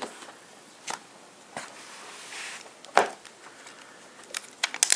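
Hands handling a plastic Mophie Juice Pack Air battery case: scattered clicks and taps, the loudest about three seconds in, a soft rustle about two seconds in, and a quick run of small clicks near the end.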